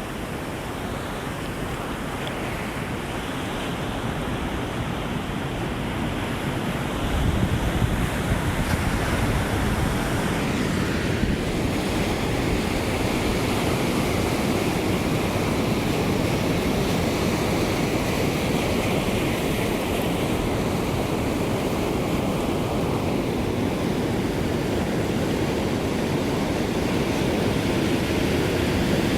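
Ocean surf: a continuous rush of breaking waves that builds over the first several seconds, surges with a heavier break about seven seconds in, then holds steady.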